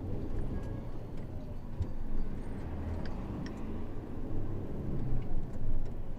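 Isuzu 8x4 truck's engine running with a steady low rumble, with a few light clicks and rattles.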